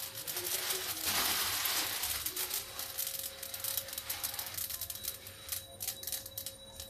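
Mustard seeds and curry leaves dry-roasting in a hot stainless-steel kadhai without oil: a soft hiss with scattered fine crackles and ticks of seeds popping against the steel, the ticks coming thicker near the end.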